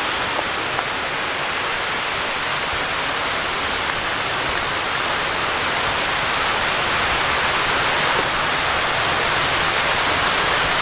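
Steady rush of falling water from Raymondskill Falls, growing slightly louder in the second half.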